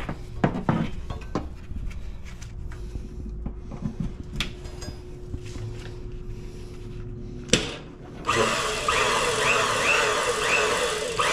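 Metal knocks and clanks as a steel bar is set in a hydraulic press brake, then about eight seconds in the press brake's pump starts and runs steadily and loudly, with a chirp repeating about twice a second.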